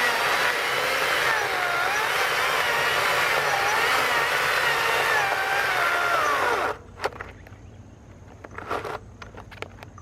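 STIHL battery-electric chainsaw cutting through a log; the motor's pitch dips and recovers as it loads up in the cut. It stops abruptly about seven seconds in, leaving a few light knocks.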